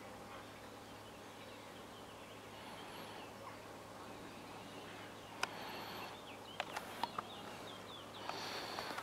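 Open-air ambience with scattered faint bird calls, short chirps and gliding notes. A few sharp clicks come in the second half, and a short louder rush of noise comes near the end.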